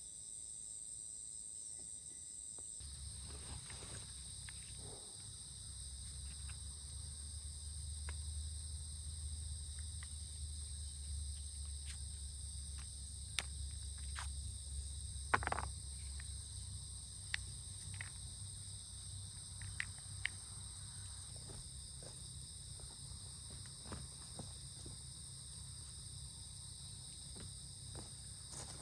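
Steady high chirring of an insect chorus, crickets among them. A low rumble joins about three seconds in, and a few sharp clicks fall through the middle.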